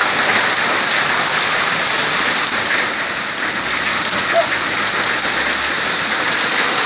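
Hail and heavy rain pelting down, a dense, steady hiss of hailstones and drops striking the ground and surfaces.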